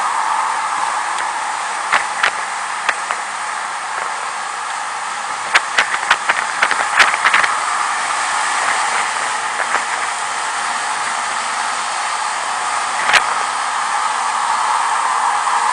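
Steady rush of wind over a vehicle-mounted camera's microphone while riding, with scattered sharp clicks and knocks, a cluster of them from about five to seven and a half seconds in and one more near the end.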